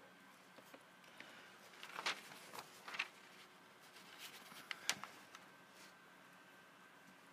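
Felt-tip markers clicking and rattling against a glass cup as one is put back and another drawn out: a handful of short sharp clicks about two to five seconds in.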